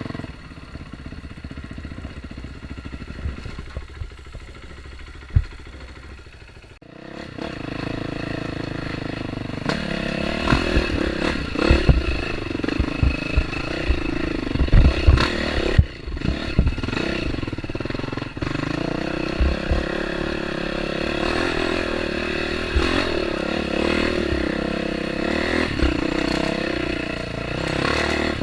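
Dirt bike engine running on a trail ride, quieter at first and then louder and pulling harder from about seven seconds in, with a run of short low thumps and clatter in the middle as the bike goes over rough ground.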